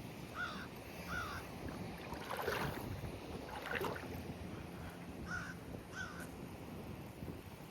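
A crow cawing: two pairs of short calls, one pair near the start and another about five seconds in. Two brief louder noises come between them, over steady wind.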